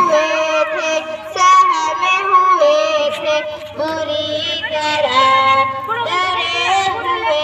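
A high voice singing a melody with long held, wavering notes, over a low backing that comes in about halfway through.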